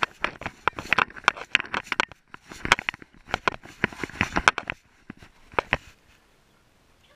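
Rapid, irregular clicks and knocks from a GoPro strapped to a moving Bernese mountain dog, its mount rattling and the dog's footfalls jolting it. The knocking stops about five seconds in.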